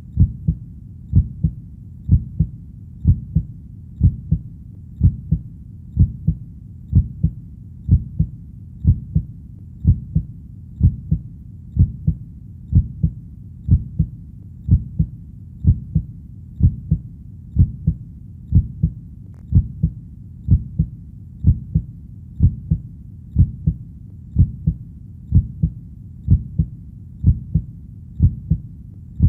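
Steady heartbeat, a slow even rhythm of low double thumps (lub-dub) at about one beat a second.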